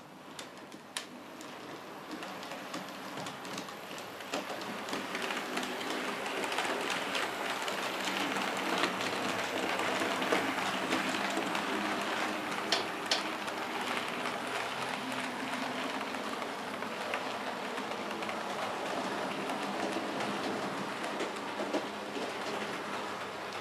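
Model railway trains running on the layout: wheels rattling and clicking along the track with a steady hum, growing louder over the first few seconds and then running on evenly with a few sharper clicks.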